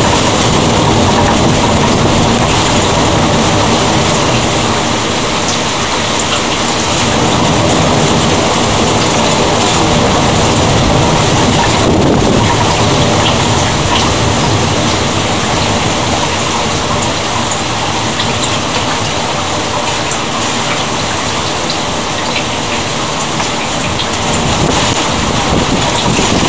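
Rain from a thunderstorm falling steadily, a loud even hiss with no distinct thunderclap.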